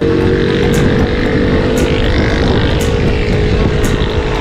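A motor vehicle's engine running close by, a steady drone over rough road and wind noise, fading near the end.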